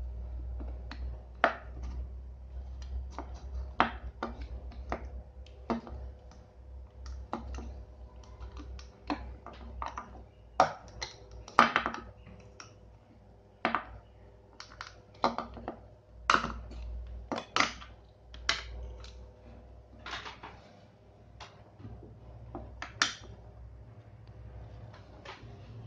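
Irregular clicks, taps and knocks of small hard parts and tools being handled while a small aquarium water pump is worked on, a few louder knocks in the middle, over a faint steady hum.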